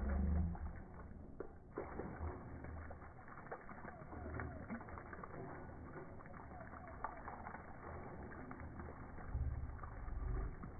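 Water pouring from an outdoor tap pipe onto a dog's back and splashing on wet concrete, with a low rumble near the end.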